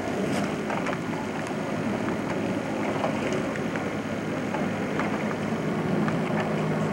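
Steady low mechanical hum, like a motor running, with faint scattered clicks over it.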